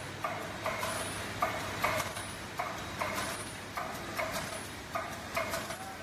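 PE zipper slider bag making machine running through its cycle: a rhythmic mechanical clacking, about two strokes a second, over a steady low hum.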